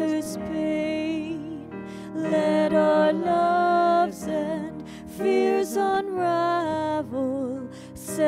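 A woman singing a hymn with grand piano accompaniment, holding long notes with vibrato.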